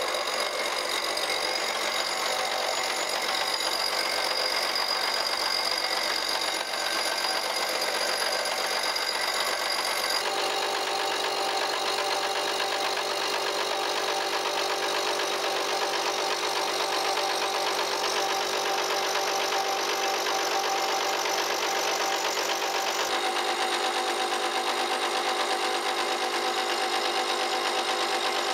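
Face mill on a vertical milling machine cutting across the top of a rough cast iron straight edge casting: a steady, dense machining noise over the mill's running motor and spindle. The sound changes abruptly twice, about a third of the way in and again past two thirds.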